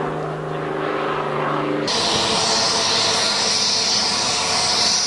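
Aircraft engine running: a steady hum, then about two seconds in an abrupt switch to a louder, hissing rush.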